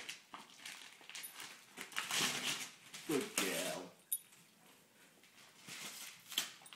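Christmas wrapping paper rustling and tearing as a flat present is unwrapped, the crinkling loudest about two seconds in. A short, high, wavering vocal sound follows a little past halfway, then a sharp click.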